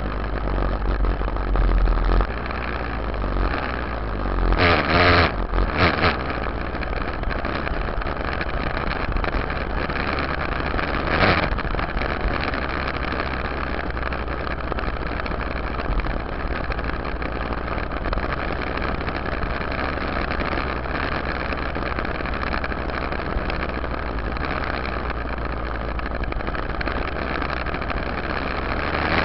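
Yamaha YZ dirt bike engine running while the bike is ridden, heard from a camera on its rear fender. It surges louder briefly about five seconds in and again around eleven seconds.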